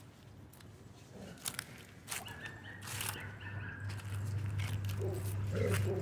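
A German Shorthaired Pointer and a Doberman play-fighting, with low growling that builds through the second half, over scattered rustling and crunching of dry leaves.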